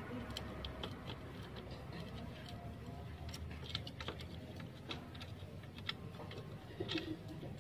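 Scattered light metallic clicks and taps of a timing chain and camshaft sprocket being handled and fitted at the open cylinder head of a Yamaha NMAX scooter engine, with a small cluster of louder clicks near the end.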